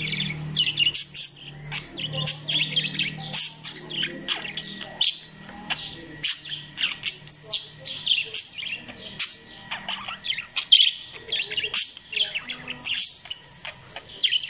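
A flock of parakeets chirping continuously, with many short, high chirps overlapping one another.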